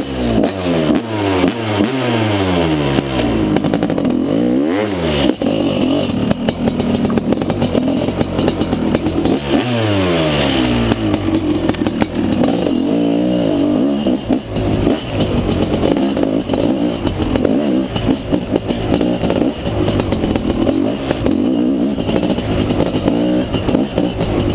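Dirt bike engine pulling away hard and running through the gears, its pitch climbing and dropping again and again as the rider accelerates, shifts and backs off, with deeper dips about five and ten seconds in.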